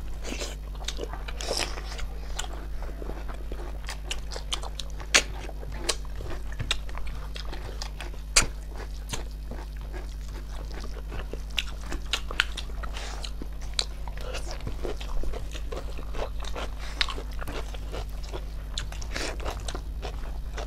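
People eating snail curry: chewing and mouth sounds with many sharp clicks and smacks at irregular intervals, over a steady low hum.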